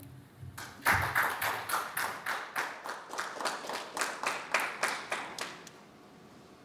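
Applause from a small audience: a few people clapping at a steady pace, starting just under a second in and dying away after about five seconds.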